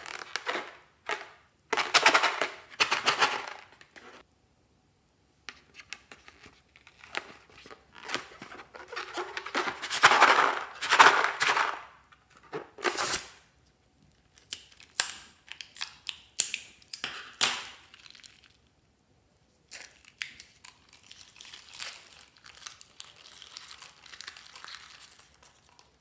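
Hands handling balloons and slime materials, making bursts of crinkling, rustling and tearing noise with sharp clicks. The loudest bursts come about two seconds in and about ten seconds in, and there is quieter rustling near the end.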